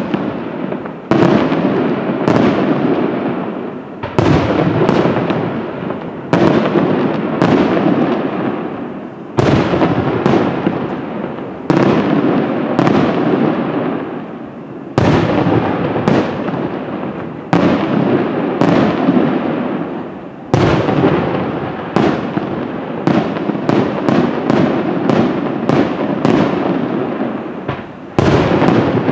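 Aerial firework shells bursting one after another, a sharp bang every second or two, each trailing off in a long echoing tail. The bangs come closer together near the end.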